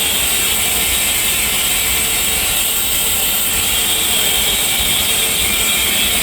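Rain test chamber running its IPX3/IPX4 test: steady machine noise with a high hiss. No water is spraying because no flow reaches the nozzles, which the operator suspects is a flow meter fault.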